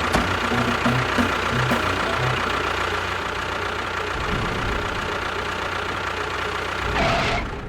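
An engine running steadily, with a brief louder swell near the end.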